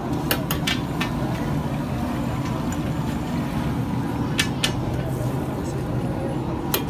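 Busy street-market ambience: a steady rumble of traffic and crowd chatter, broken by several sharp clicks, a few in the first second, two around the middle and one near the end.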